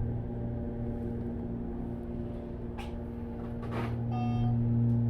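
Steady hum of a car running, heard inside the cabin, with two brief noisy swishes past the middle and a short electronic beep about four seconds in.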